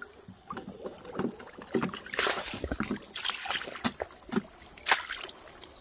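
Irregular wet splashes and slaps in shallow muddy water around a fishing net holding fish, with a sharper splash about five seconds in.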